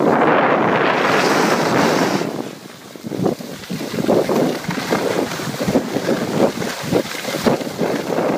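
Wind buffeting the microphone of a camera carried by a skier moving downhill, mixed with the hiss and scrape of skis on packed snow. It eases briefly about two and a half seconds in, then comes back as a run of short scraping strokes.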